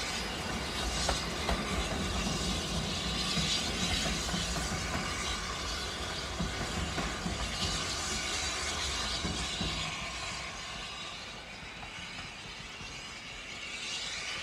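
Steam locomotive hauling a train of coaches away along the line. The sound of the engine and train fades after about ten seconds as it draws into the distance.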